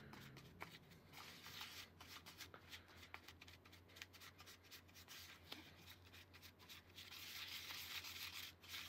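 Faint scraping and rubbing of cookie dough being worked in a bowl, with scattered light clicks and a louder stretch of scraping near the end.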